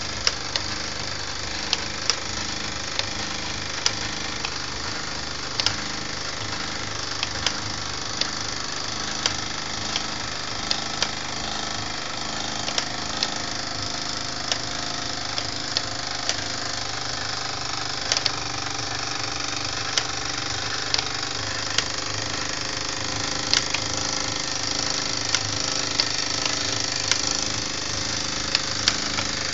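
Mamod toy steam engine driving a model workshop line shaft: a steady mechanical whirr of turning pulleys and spring drive belts, with a sharp click every second or two.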